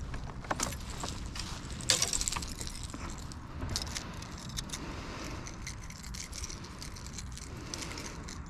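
Light clicking and rattling of fishing gear being handled in a kayak, with one louder clatter about two seconds in, over a steady low rumble.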